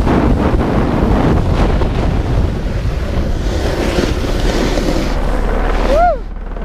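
Wind buffeting a body-mounted camera's microphone, mixed with a snowboard sliding through slushy snow, as the rider carves and skids sideways to a stop. The noise cuts off suddenly near the end, followed by a short tone that rises and falls in pitch.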